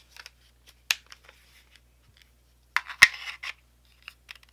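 Hard plastic clicks and scraping as a Kydex knife sheath holding a knife and accessories is handled and set down, with a sharp snap about three seconds in.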